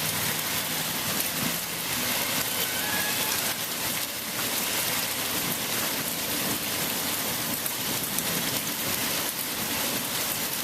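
Heavy rain mixed with small hail pouring down and pelting surfaces: a steady, dense hiss with scattered faint ticks of hailstones.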